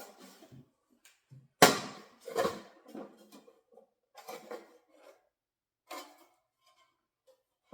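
Irregular knocks and clinks from parts of a new refrigerator being handled. A sharp knock about one and a half seconds in is the loudest, with a second shortly after and a few lighter ones later.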